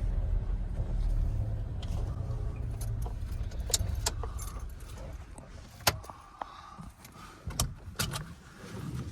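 Car road and engine rumble heard from inside the cabin, dying away over the first few seconds as the car slows, then a run of scattered small clicks and rattles.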